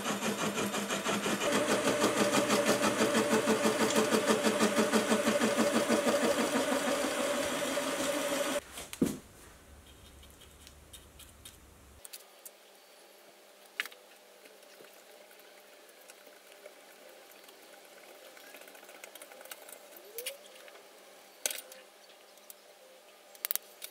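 A slitting saw on a milling machine cutting a slot into a small metal block: a steady machining sound with a fast, even rhythm. It stops about nine seconds in. After that come only a few faint clicks and taps as the metal part is handled.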